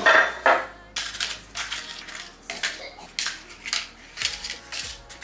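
Paper cupcake cases crinkling and rustling as they are separated and pressed one by one into the cups of a muffin tin, in a run of short rustles about two or three a second, after a louder scuff at the start.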